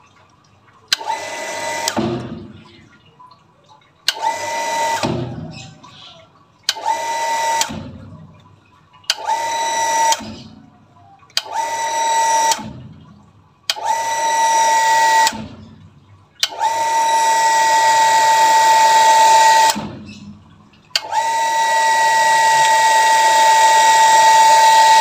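Shimizu electric water pump short-cycling: its motor starts with a whine, runs a second or so, cuts out and spins down, over and over about every two and a half seconds. This is the on-off 'tak tek' of an automatic pressure switch that needs adjusting. The runs lengthen, and from about three-quarters of the way in the pump keeps running steadily.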